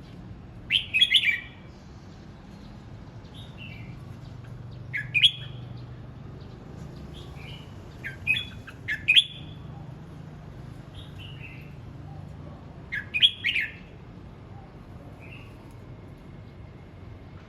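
Red-whiskered bulbul singing in short, quick bursts of notes, four louder phrases a few seconds apart with softer notes between, over a steady low hum.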